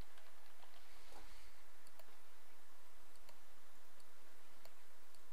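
Scattered faint clicks of a computer mouse and keyboard over a steady background hiss.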